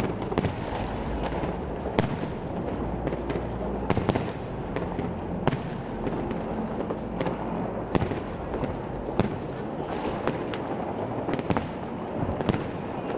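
Fireworks display: aerial shells bursting in sharp bangs about once a second, irregularly spaced, over a steady low rumble.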